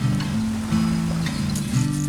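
Background music led by strummed acoustic guitar, chords changing every half second or so.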